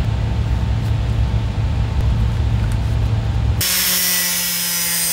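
A loud low rumbling machine, then an abrupt change about three and a half seconds in to a hissing power tool with a steady whine.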